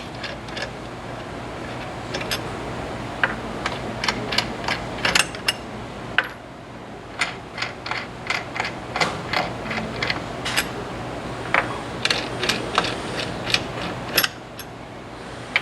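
Metal clicks and clinks, irregular and scattered, as loosened nuts are worked off the cylinder mount of a rotary filling machine with a wrench and by hand. A low steady hum runs underneath.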